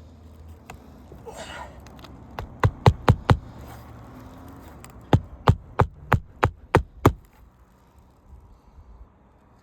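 Hammer blows on a shingle roof during a repair, two runs of sharp strikes, four then six, about three a second, after a brief scrape.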